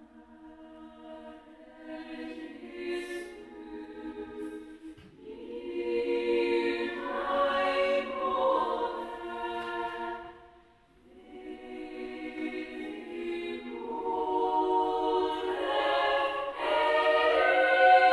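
Women's choir singing a cappella in a large church. The phrases swell and fade, with a short breath-pause about eleven seconds in, and the singing is loudest near the end.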